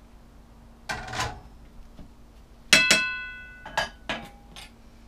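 Kitchen clatter: a skillet set down on the stove about a second in, then four sharp metallic clinks of utensils that ring briefly, the first and loudest a little before halfway.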